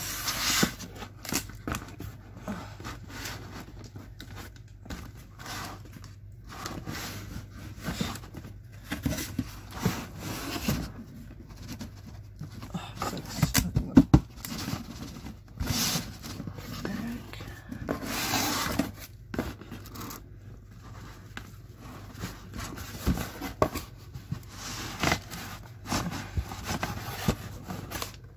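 Cardboard scraping and rustling as a boxed item is slid out of a tight shipping box, in uneven bursts of handling noise, with a couple of sharp knocks about halfway through.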